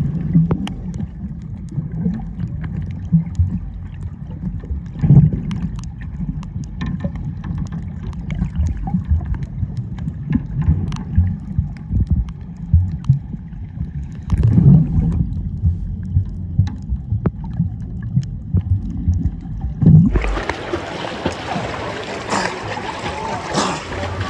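Muffled water sloshing and gurgling against the microphone, with irregular low knocks. About twenty seconds in it changes abruptly to a bright hiss of splashing water.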